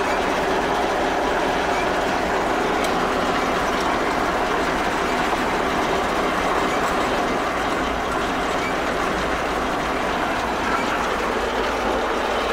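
Fortschritt E 514 combine harvester running steadily with its header engaged, heard from inside the cab: a constant mechanical clatter of the engine and the turning header auger and reel. The header is being run to check a newly fitted bearing that sits unevenly on its bushing.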